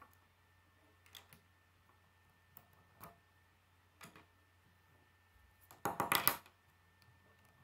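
Plastic K'nex pieces being handled: a few light clicks as rods and connectors are fitted, then a louder, brief clatter of plastic parts about six seconds in as a wheel is picked up.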